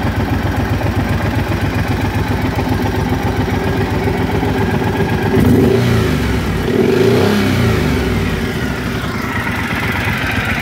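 Triumph Thunderbird LT's 1,700 cc parallel-twin engine idling, blipped twice on the throttle about halfway through, the revs rising and dropping back to idle each time.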